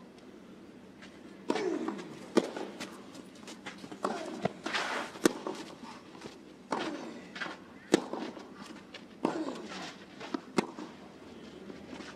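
Tennis rally on a clay court: tennis balls struck by rackets in an exchange starting about a second and a half in, a sharp hit every second or so, with short grunts from the players on some shots.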